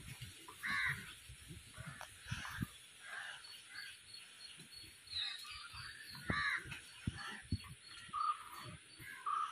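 Hands kneading wet flour dough in a stainless steel bowl: irregular soft squelches and dull knocks against the bowl. Birds call in the background, louder a second in and again about six seconds in.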